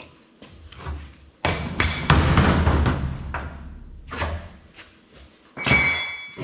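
Cast-aluminium transmission bell housing, cut around, being broken free of the case by hand: a run of clattering metal knocks and scrapes, then a loud metal clang with ringing near the end.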